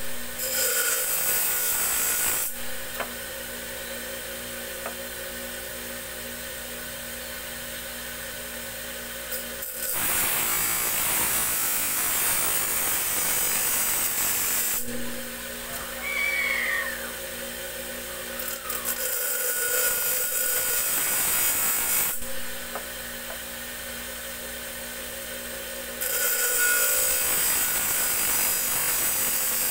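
Large motor-driven grinding wheel shaping a steel tari blade: the wheel runs with a steady hum, and each time the blade is pressed to it a loud grinding hiss rises for a few seconds, then drops back to the hum, several times over.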